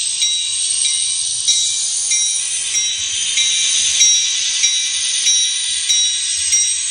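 Sound decoder of an N scale EMD SD40T-2 model locomotive playing a diesel locomotive bell, ringing evenly a little under twice a second over a steady hiss, with a faint low engine rumble.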